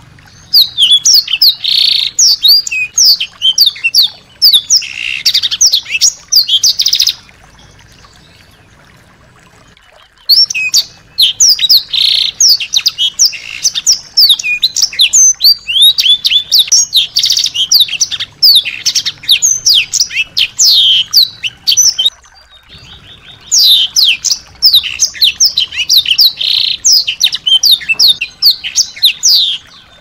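A small songbird singing loud, rapid strings of sharp chirps and trills, in three long runs broken by two pauses, the first a few seconds long.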